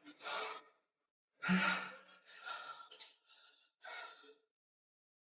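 A man breathing out hard in a series of separate sighing exhalations, one with a short voiced "haa": out of breath after a 3 km run on an inclined treadmill.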